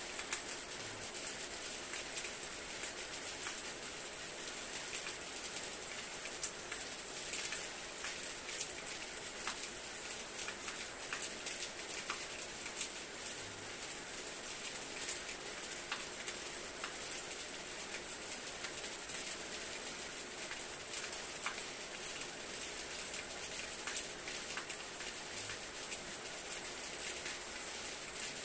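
A steady fine hiss with many small ticks scattered irregularly throughout.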